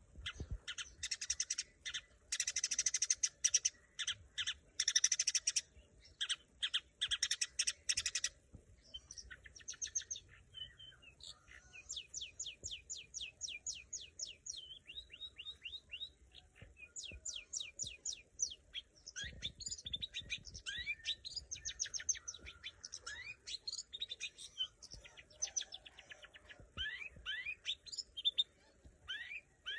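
Long-tailed shrike (cendet) singing: harsh, scratchy chattering phrases for about the first eight seconds, then long runs of quick, sharply sweeping notes and trills.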